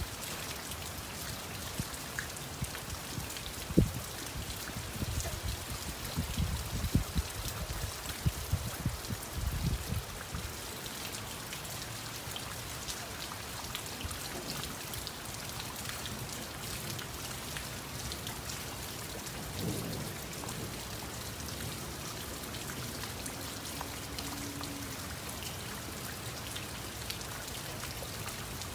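Steady rain falling, with individual drops ticking on a surface. Irregular low thumps come through during the first ten seconds, the sharpest about four seconds in.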